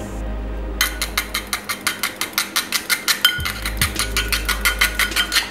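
A raw egg being beaten briskly with a utensil in a ridged ceramic bowl: the utensil clicks and scrapes against the bowl's ridges about five times a second, starting about a second in.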